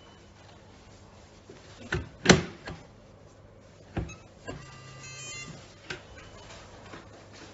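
Sharp clicks and knocks of a cabinet door and its child-safety lock being worked, the loudest about two seconds in, then a short electric whir lasting about a second.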